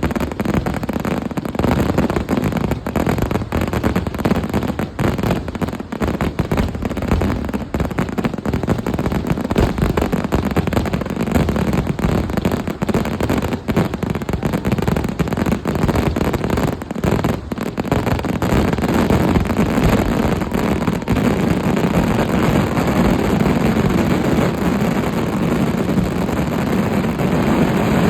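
Kerala temple fireworks (vedikkettu) going off in a rapid barrage: dense bangs and cracks so close together they run into a continuous rattle. After about twenty seconds the separate bangs blur into a steady rumbling roar.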